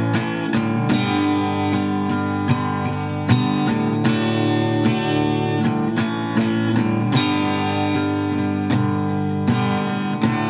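Instrumental passage of a song: a strummed acoustic guitar playing steady chords, with no singing.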